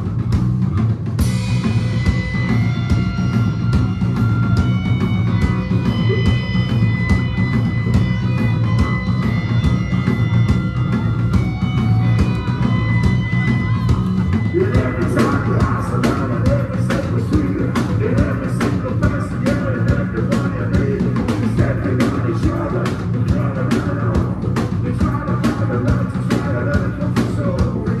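Live rock band playing an instrumental passage: a steady drum beat under loud guitars. High held notes sound from about a second in until about halfway, then a wavering guitar line takes over.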